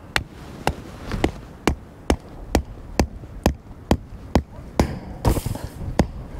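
A steady run of sharp knocks, about two a second.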